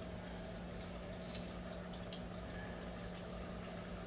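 Hot oil sizzling and bubbling around wonton-wrapped tacos deep-frying in a pot, with a few sharp ticks about two seconds in.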